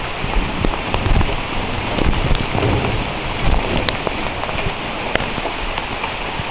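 Heavy rain pouring down steadily, with scattered sharp ticks of drops striking the plastic bag wrapped over the camera.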